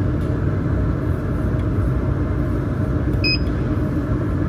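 Steady low machine hum from the running laser welding machine and its chiller, unchanged throughout. About three seconds in, the chiller's control panel gives one short electronic beep as its power button is pressed.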